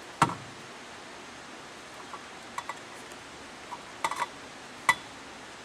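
Sharp clicks and light taps of hands and parts handling a vent window frame while rubber weatherstrip is worked into its channel: one loud click right at the start, a few faint ones, a quick cluster about four seconds in and another sharp click near the end, over a steady hiss.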